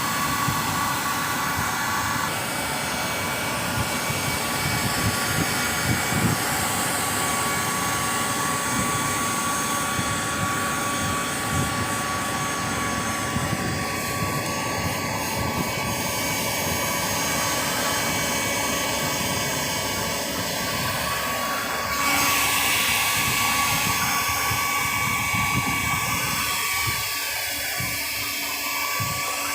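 Steady machine noise from power tools at work on a conveyor belt, with a constant high whine. The sound changes and gets a little louder about 22 seconds in.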